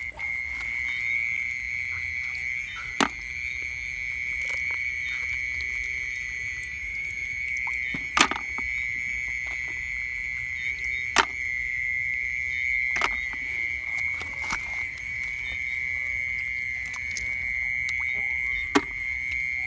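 Steady high-pitched chorus of night insects and frogs, with a few sharp clicks every few seconds.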